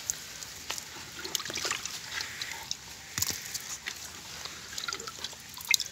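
Whole tilapia being handled and laid onto a wet concrete slab: scattered soft wet slaps and clicks, with one sharper knock about three seconds in.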